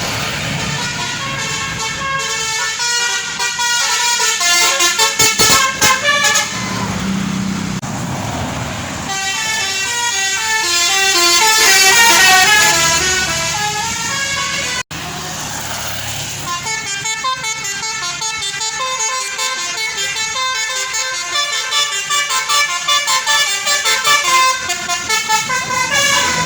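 Indonesian tour-bus 'telolet' multi-tone horns (Basuri and Alzifa types) playing quick stepping tunes, loud, with a short rushing noise between tunes about seven seconds in. The sound breaks off abruptly about fifteen seconds in and another horn tune starts.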